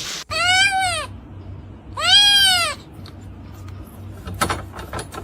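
An animal's call, given twice: each a high call of under a second that rises and falls in pitch. A few sharp knocks follow near the end.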